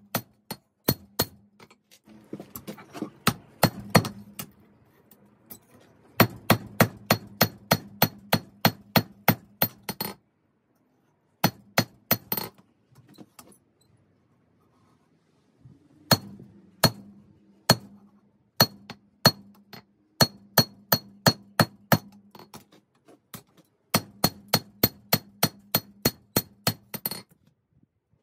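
Hand hammer striking 5160 spring steel on an anvil in runs of quick, ringing blows, about three a second, broken by a couple of short pauses.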